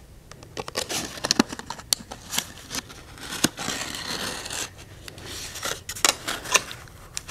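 Stiff rawhide crackling and sinew rasping as the strand is pulled through punched holes and the hide is worked in the hands, right by a clip-on microphone: a run of scratchy rustles and small clicks.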